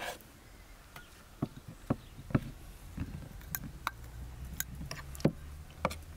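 Kitchen knife chopping prunes on a bamboo cutting board: irregular sharp knocks as the blade hits the board, about eight in all. Partway through, prunes are tipped from a ceramic bowl onto the board.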